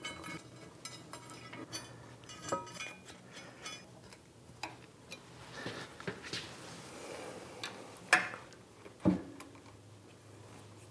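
Metal clinks, clicks and small knocks of a steel mounting plate being fitted onto a lathe and its fasteners worked with hand tools, with two louder knocks about a second apart near the end.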